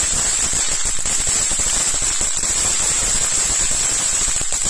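Ground firework fountain spraying sparks with a steady loud hiss, scattered with small crackles.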